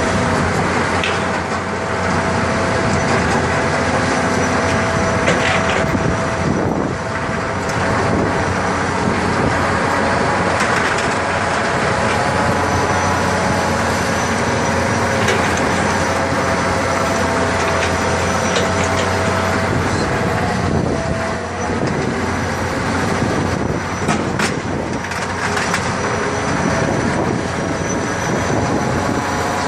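A very large dirt-digging machine working continuously: dense mechanical running noise with a steady whine, and a few sharp clanks scattered through.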